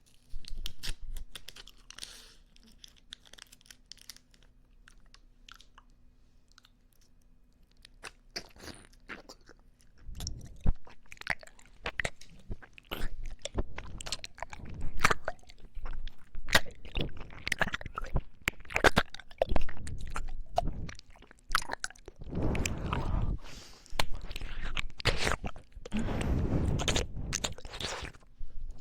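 Close-miked mouth sounds of chewing popping candy: sharp crackling pops and crunches. They start sparse and quiet, then turn dense and louder about a third of the way in.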